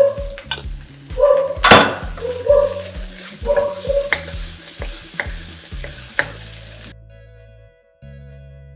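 Diced mixed vegetables sizzling in a non-stick wok as they are stirred with a wooden spatula, with several sharp knocks of the spatula against the pan, the loudest about two seconds in. The frying stops abruptly about seven seconds in, leaving background music.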